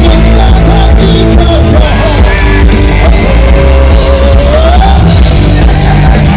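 Live rock band playing, with a sung melody over electric guitar and drums, filmed from within the crowd.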